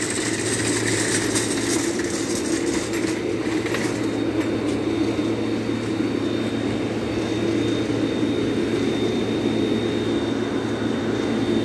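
Steady low mechanical drone, like an engine or machinery running, with a thin steady high tone joining about four seconds in.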